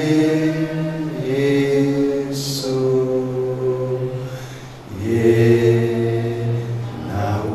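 A man singing a slow, unaccompanied chant-like song into a handheld microphone, with long held notes and a brief pause about five seconds in before the next line.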